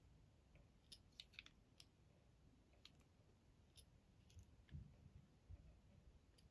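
Near silence with faint, scattered clicks and taps from fly-tying tools being handled at the vise: a bobbin and scissors as thread is wrapped onto the hook. A small cluster of clicks comes about a second in and a few more are spread out after it.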